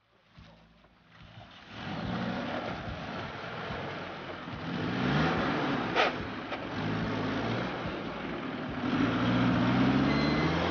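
Off-road 4x4's engine revving up and down under load as it drives over a steep, rutted dirt track. One sharp knock comes about six seconds in, and the engine pulls harder, rising in pitch, near the end.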